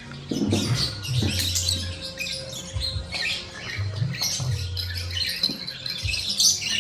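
A lovebird's claws and beak scratching, clicking and tapping on a small plastic toy basketball set, with a few dull knocks.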